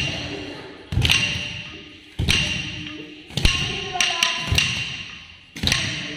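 Wooden stick (thattukazhi) beating time on a wooden block, with barefoot stamps of Bharatanatyam tatta adavu steps. Sharp, ringing strikes come about once a second, a few in quick pairs, each echoing out in the hall.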